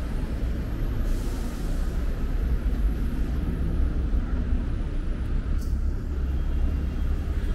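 City street ambience: a steady low rumble of traffic, with a brief hiss about a second in.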